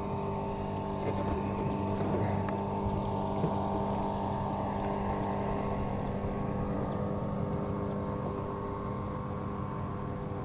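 Motorboat engine running steadily at one pitch, a constant hum over water and wind noise.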